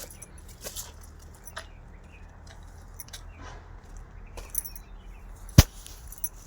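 Scattered light clicks and clinks, with one sharp knock about five and a half seconds in.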